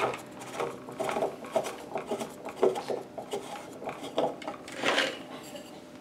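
A 1.5-inch threaded ABS pipe being unscrewed by hand from a plastic sump pump's discharge outlet: a series of short, irregular plastic scrapes and knocks.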